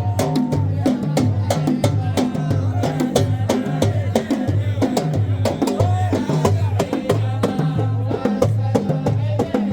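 Music with a steady low drum beat, about two beats a second, sharp percussive strikes between the beats, and a melodic line or voices over it.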